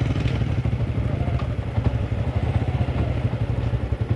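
Small motorcycle engine running steadily at low revs, a fast even putter.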